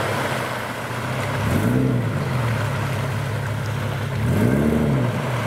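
Toyota FJ Cruiser's V6 engine running as the truck wades through shallow water, revving up and back down twice, about a second and a half in and again near the end, over a steady wash of splashing water.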